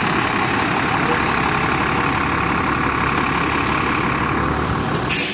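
Fire engine's diesel engine running steadily at close range, with a brief hiss near the end.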